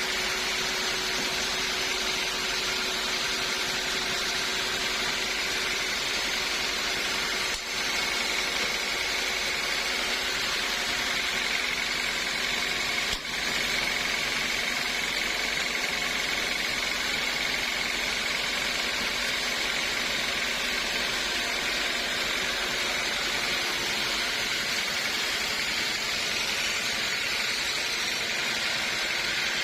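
Sawmill saw running steadily with a continuous high whine. The sound drops out very briefly twice.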